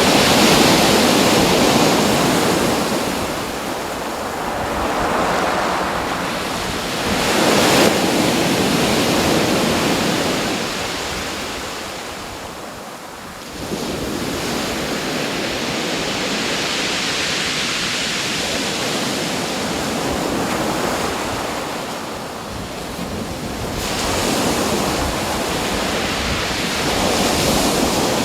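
Ocean surf: waves breaking and washing in, swelling and falling back every few seconds, with a brief lull about twelve seconds in.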